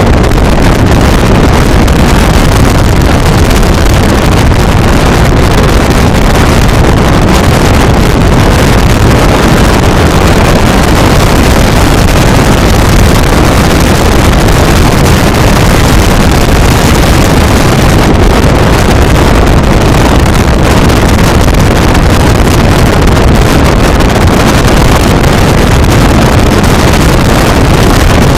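Motorboat running at speed at sea, heard as a loud, steady rush of engine, hull and water noise with wind buffeting the microphone.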